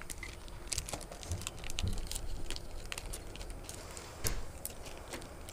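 Small clear plastic bags of fishing jigs being handled and opened by hand: scattered light clicks and crinkles, with one sharper click about four seconds in.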